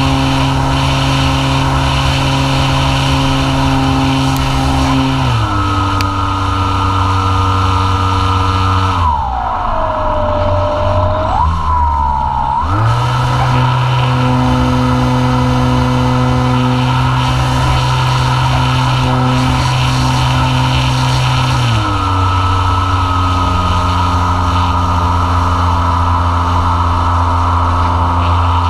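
E-flite Apprentice S 15e's brushless electric motor and propeller whining, picked up by a camera on the plane, over a rush of air noise. The pitch steps down about five seconds in, falls sharply around nine seconds as the throttle comes back, climbs again about three seconds later, and steps down once more after about twenty-two seconds.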